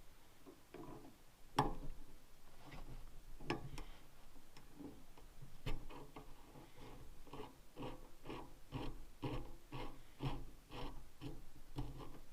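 Hand work on a part being refitted: a few scattered knocks and clicks, then a regular run of short strokes at about three a second from about halfway in.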